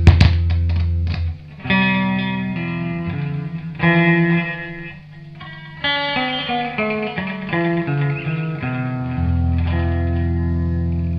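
Electric guitar played through a tube tape echo unit and tube amplifier, held notes carrying the echo effect. It opens with a loud pop as a playback-head control on the echo is switched, repeated by the tape a few times in quick clicks.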